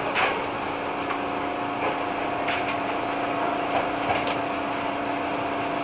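Hankyu 8000 series electric train rolling slowly and braking as it pulls into the terminus platform, heard from inside the cab. A steady hum carries two steady tones, the higher one coming in about a second in, with a few short sharp clicks.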